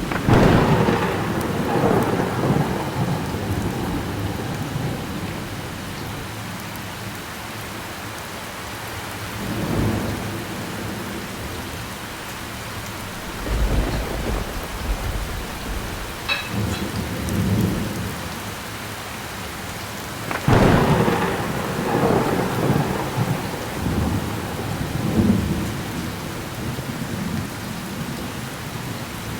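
Thunderstorm: steady heavy rain with repeated thunder. A loud crack rolls into a long rumble at the start, softer rumbles follow in the middle, and a second loud crack and rumble comes about two thirds of the way through.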